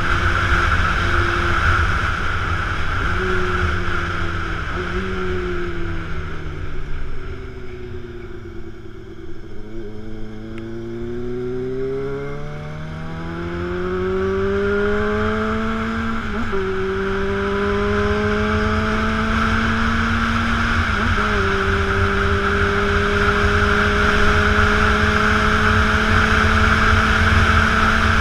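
Honda Hornet motorcycle's inline-four engine on the move, muffled under wind rush on the camera. The engine note drops in pitch as the bike slows, then rises steadily under acceleration. There are upshifts about two-thirds of the way through and again a few seconds later, before it settles into a steady cruise.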